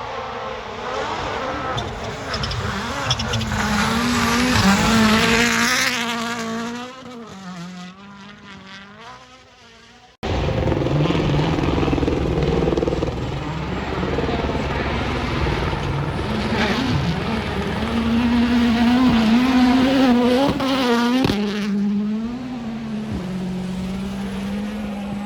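Rally cars at speed on a stage: one car's engine note climbs to a peak, pitch rising and falling, then fades away. After a sudden cut, a second car's engine runs loud for about ten seconds with its pitch rising and falling, then settles to a steadier, lower note near the end.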